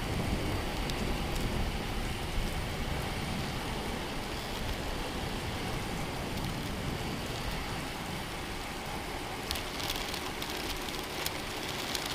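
Heavy rain falling steadily, with a low rumble underneath and a spell of sharper crackling drops near the end.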